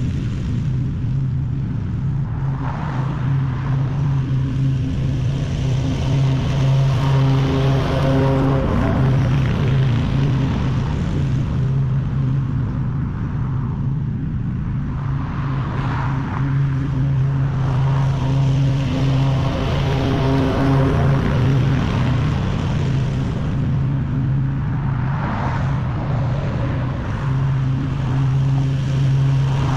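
Stand-on zero-turn lawn mower's engine running steadily under load while cutting grass: a constant drone that swells and fades a little as the mower moves.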